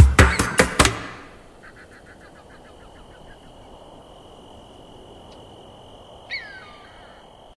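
An electronic dance track with a hard, regular drum beat ends about a second in. After it comes faint outdoor ambience: a steady high tone, a quick run of chirping notes, and a single falling call near the end.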